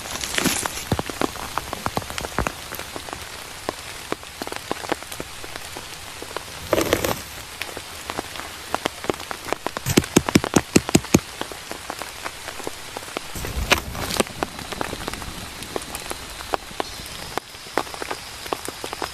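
Rain falling steadily, with many sharp drops striking close by and a quick run of loud drip ticks about ten seconds in. Two brief rustles break in, one near the middle and one a few seconds later, and a faint high steady tone comes in near the end.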